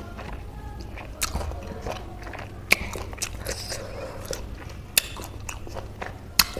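Close-miked chewing of juicy citrus fruit: wet mouth sounds with a few sharp smacks and clicks.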